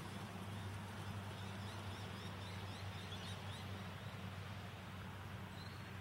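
Outdoor background with a steady low rumble and a quick run of faint, high bird chirps about two seconds in.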